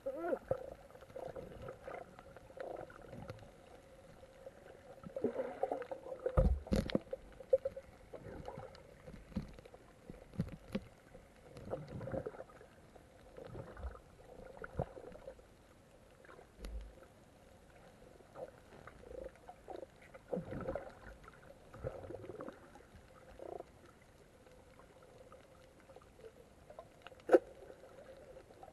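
Underwater sound picked up by a diver's camera below the surface: muffled gurgles and bubbling with scattered knocks and clicks over a faint steady hum. A louder low thump comes about six and a half seconds in, and a sharp click near the end.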